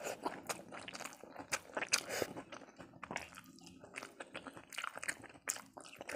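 Close-up chewing and wet mouth sounds of someone eating rice with dal and makhana curry by hand, with the soft squish of fingers mixing the rice on the plate: many short, irregular smacks and clicks.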